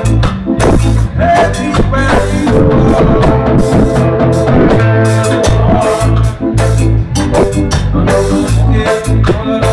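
Live band music, loud, with a drum kit keeping a busy beat over a bass line. A held chord sounds for a couple of seconds near the middle.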